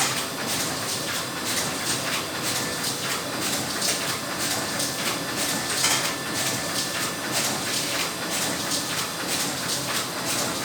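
Glossy/doff film laminating machine running, a rapid, uneven clatter of clicks over a steady hiss with a faint high whine.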